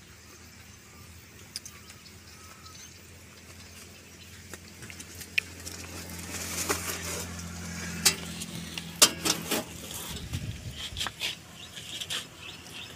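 Rustling and footsteps as a full sack of melons is carried up and handled, with several sharp knocks between about eight and ten seconds in as it is set down on a spring dial scale. A low steady hum runs underneath until about ten seconds in.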